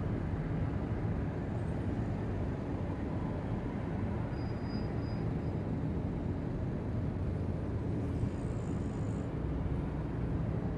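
A sleeping pet snoring, a low steady rumble.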